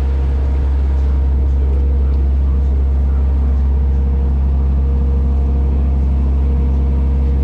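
Water taxi's engine running steadily under way: a loud, even low drone with a steady hum above it, over the wash of the wake along the hull.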